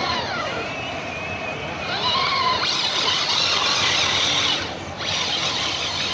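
Electric motors of radio-controlled off-road trucks whining, the pitch rising and falling with the throttle. The sound gets louder for a few seconds in the middle.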